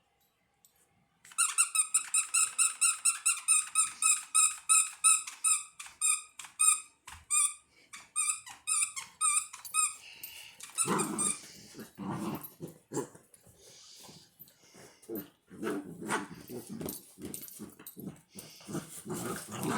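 Labrador puppies at play: a run of rapid high-pitched squeaks, about four a second and slowing, for the first half, then play growls and short barks.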